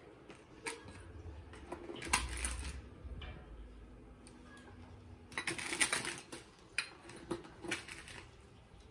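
Granulated sugar poured from a small measuring cup into a large metal basin: two brief hissing pours, about two seconds in and again past the middle, among light clicks and taps of the cup against the plastic sugar container.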